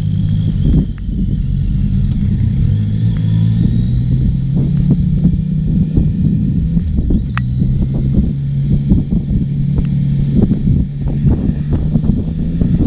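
Yamaha XSR900's 847 cc inline three-cylinder engine pulling at low speed under light throttle, its note briefly dipping and coming back lower about halfway through. Wind buffets the microphone throughout.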